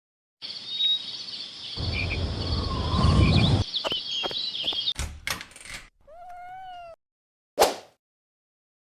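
A string of edited-in sound effects: a rushing noise with high tones and a heavy low rumble for about three seconds, a few sharp clicks, a short pitched cry that rises then holds for about a second, and a single sharp hit near the end.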